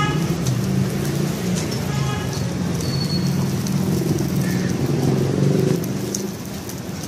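Street noise: a steady low rumble of traffic, with a frying hiss from food on a flat iron griddle. The rumble eases a little near the end.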